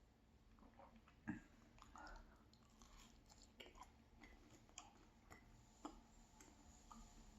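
Faint close-up chewing of a pan-fried cheese pancake: soft, irregular wet mouth clicks and smacks, with one sharper click about a second in.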